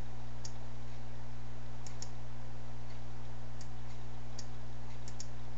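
About seven short computer mouse clicks, a couple of them in quick pairs, over a steady low electrical hum and hiss.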